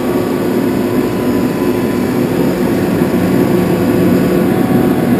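Ingersoll-Rand SSR-EPE25U 25 hp electric rotary screw air compressor running, a steady hum with several constant tones.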